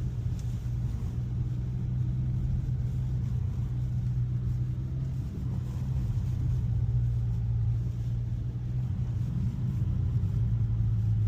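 Cabin drone of a 2021 Mazda 3 Turbo's 2.5-litre turbocharged four-cylinder engine running at low, steady revs, a low hum that drops slightly in pitch near the end.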